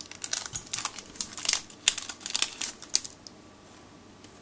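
Crinkling and crackling of a foil wipe sachet being opened and the wipe pulled out. The crackle is dense and irregular and stops about three seconds in.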